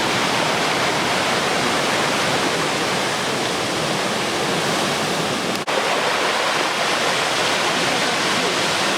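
Typhoon-swell surf breaking on the beach, a loud continuous rush of waves, broken by a momentary dropout a little past halfway.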